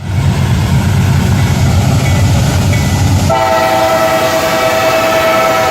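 Diesel locomotive rumbling at a railroad crossing, then its air horn sounds one long blast about three seconds in, held steadily.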